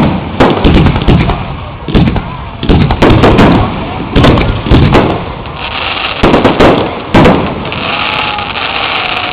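Fireworks display: aerial shells bursting in quick succession, about a dozen loud bangs, with a steady hiss between the bangs in the second half.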